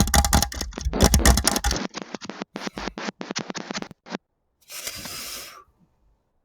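Rapid, irregular tapping clicks, tapped out as Morse code into a voice-chat microphone, heaviest and loudest in the first two seconds, stopping about four seconds in. A short burst of static hiss follows about a second later.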